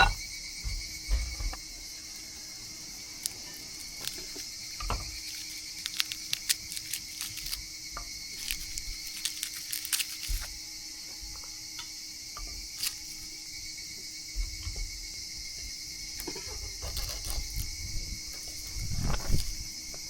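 Steady high insect chorus, with scattered sharp clicks and short low knocks throughout.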